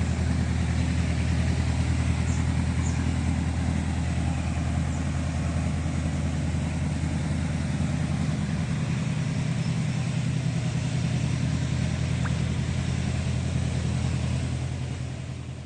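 Hitachi ZAXIS 70 excavator's diesel engine running steadily at an even speed, fading out near the end.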